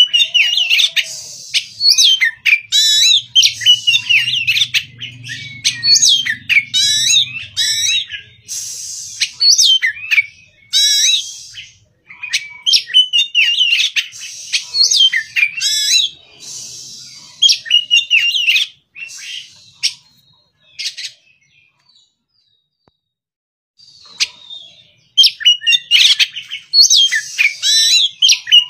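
Caged oriental magpie-robin (kacer), an untrained young bird, giving its morning song: rapid, varied phrases of sweet whistles mixed with scratchy chatter. It stops for a few seconds about two-thirds of the way through, then starts singing again.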